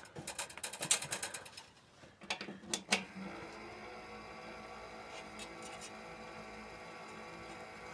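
Clicks and knocks of handling the open PC, then a sharp click about three seconds in after which the old socket 478 PC's power supply and fans start and run with a steady hum. No POST beeps come from the plugged-in beeper, a sign that the machine is not passing its power-on self test.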